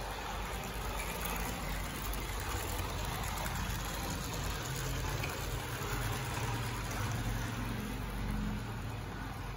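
Small electric motor of a cardboard model electric train whirring steadily as the train runs along cardboard track, with a low hum that shifts in pitch near the end.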